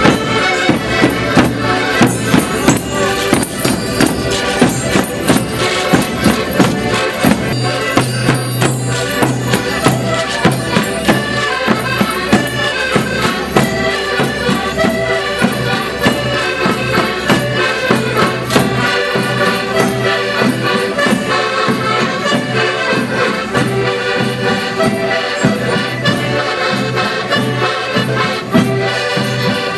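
A group of Portuguese concertinas, small diatonic button accordions, playing a lively folk tune together over a steady beat of hand percussion.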